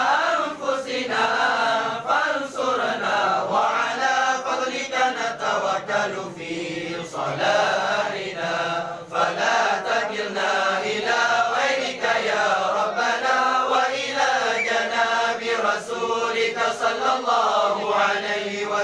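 A group of men chanting an Arabic prayer together in unison, many voices overlapping in a continuous recitation.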